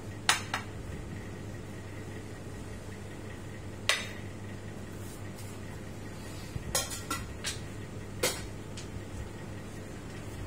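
A ceramic latte cup set down on a bar counter with a clink just after the start, then several more scattered clinks and knocks as metal milk pitchers and barista tools are handled and put down, over a steady low hum.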